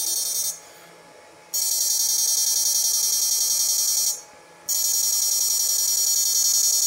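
Homemade 6-FET electrofishing inverter running under test, giving a loud, steady high-pitched electronic whine with a faint low pulse about three times a second. It cuts out twice: for about a second starting half a second in, and for about half a second around four seconds in.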